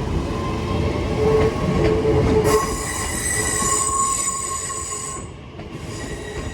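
A Class 323 electric multiple unit pulls out of the station: a heavy rumble with high, steady whining tones that fade away about five seconds in.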